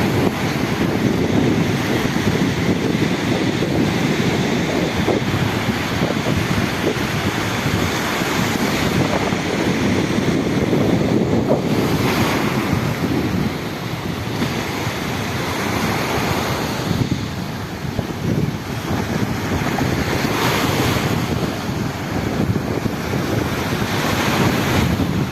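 Sea waves surging and washing in a continuous rush that swells and eases every few seconds, with wind buffeting the microphone.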